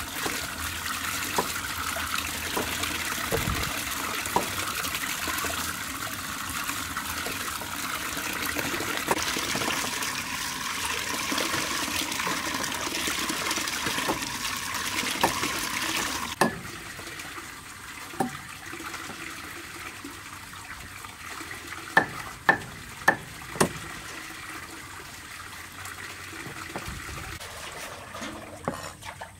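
Tap water pouring into a metal basin of water while sweet potatoes are washed by hand, running steadily and then stopping abruptly about halfway through. Later there are four sharp knocks in quick succession, and near the end a cleaver chopping on a wooden block.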